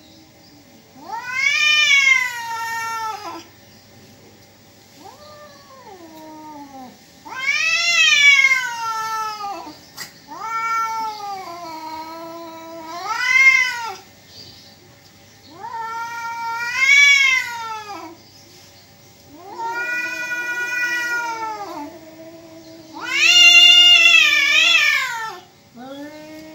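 Two domestic cats yowling at each other face to face: a series of long, drawn-out caterwauls, each a few seconds long and rising and falling in pitch. They follow one after another, and the loudest comes near the end. This is the threatening yowl of a cat standoff on the edge of a fight.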